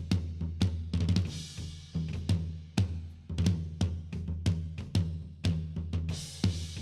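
Drum kit playing a steady groove, with kick, snare, hi-hat and cymbal hits roughly twice a second, over a low sustained bass line: an instrumental stretch of a gospel church band's recording.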